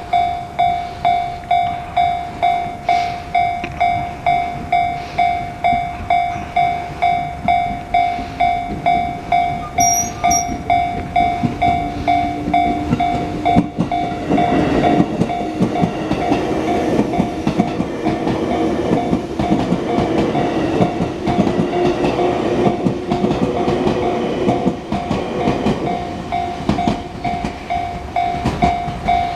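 Japanese level-crossing alarm on the JR Ryomo Line ringing, an electronic ding pulsing about twice a second. About halfway through, a train passes over the crossing, rumbling and clattering, with a low motor hum that rises slightly in pitch under the continuing alarm.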